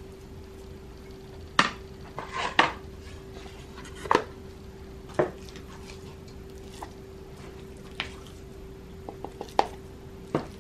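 Metal spoon knocking and scraping against a foil pan and a paper cup while scooping ground raw meat, in sharp clicks and knocks a second or two apart, some in quick clusters. A steady low hum runs underneath.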